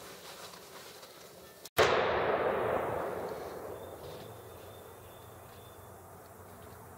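A single rifle shot about two seconds in, its report rolling away and fading over a couple of seconds. The bullet strikes the lid of the Tannerite container without setting off the Tannerite.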